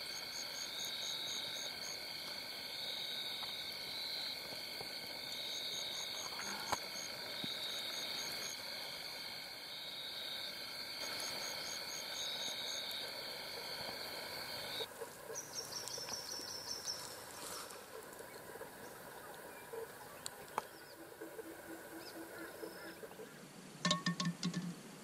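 Crickets and other night insects calling in a steady chorus, with a high trill pulsing on and off, until everything cuts off abruptly about fifteen seconds in. After that the background is quieter: a short run of low croaks, then a few sharp clicks near the end.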